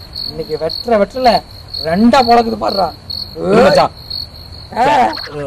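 Crickets chirping in a steady run of short pulses at one high pitch, with short voice-like calls breaking in every second or so.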